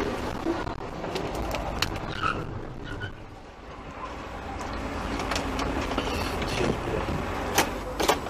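Road and engine noise heard inside a moving car's cabin, a steady low rumble, with scattered sharp clicks, a few of them near the end.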